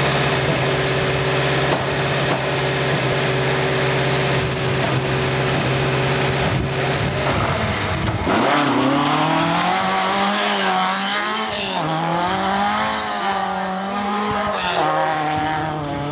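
Rally car engine running close by, first at a steady pitch. About halfway through the sound changes to revs rising and falling repeatedly as the throttle is worked.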